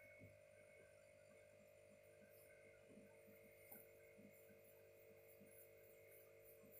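Near silence: a faint steady electrical hum with a few faint, scattered ticks.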